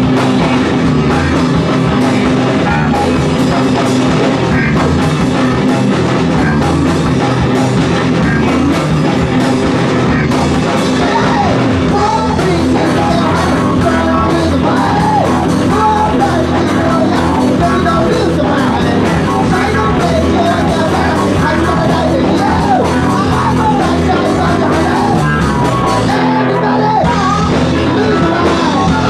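A rock band playing live and loud: electric guitars and a drum kit, with a man singing into the microphone from about twelve seconds in.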